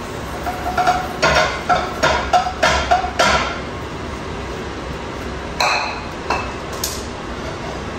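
Kitchen utensils knocking against cookware in a quick run of taps, then two sharp, ringing metallic clinks a little over a second apart near the end.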